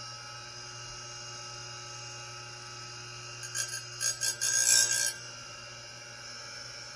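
A sharpener scraping against the teeth of a dull sawmill bandsaw blade in a quick run of short, harsh metal-on-metal strokes about halfway through, over a steady low hum.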